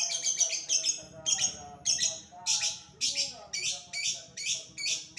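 A lovebird ngekek: a long, loud, unbroken run of sharp, shrill chirps repeated rapidly, about three a second.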